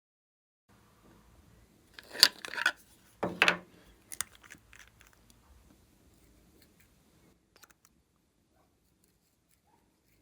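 Close crunching and crackling handling sounds of slime materials: two loud crackly bursts about two and three seconds in, then scattered small clicks that fade out.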